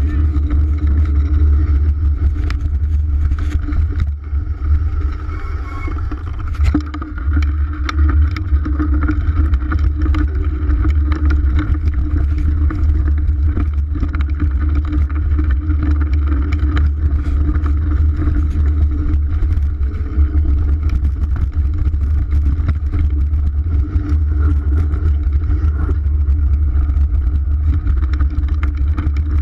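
Wind buffeting a GoPro Hero 3 camera in its housing on a moving mountain bike, a steady deep rumble, with frequent clicks and rattles as the bike and camera jolt over a rough dirt trail.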